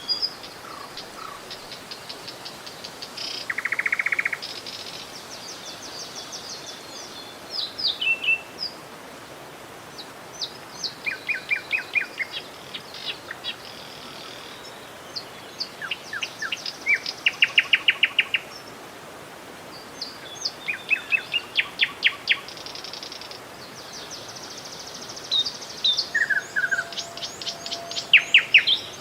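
Several birds singing and calling, with quick chirps and fast trills coming again and again, over the steady rush of a flowing river.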